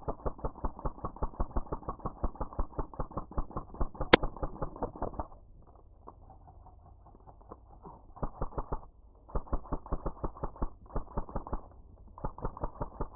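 Airsoft electric gun (AEG) firing long full-auto bursts, a rapid even string of shots, stopping and starting several times. A single sharp crack stands out about four seconds in.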